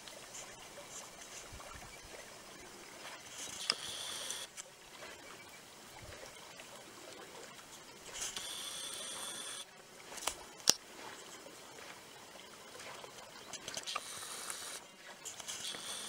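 Quiet outdoor pond ambience with faint water sounds and patches of soft high hiss. A few sharp clicks stand out, the loudest about two-thirds of the way through.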